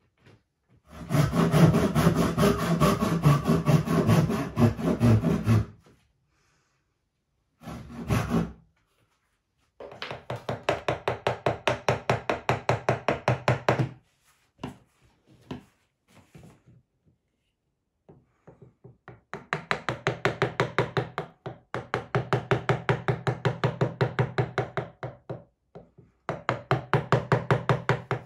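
Hand tool worked quickly back and forth on ash wood, a saw or rasp cutting, in several runs of a few seconds each with short silent gaps between them.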